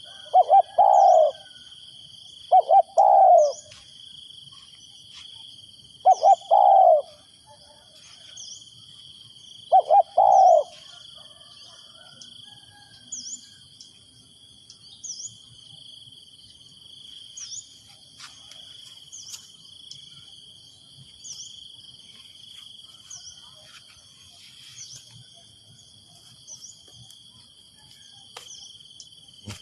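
Spotted dove cooing: four short phrases of coos in the first ten seconds, then silence from the dove. Steady insect trilling and faint short high chirps about every two seconds carry on underneath.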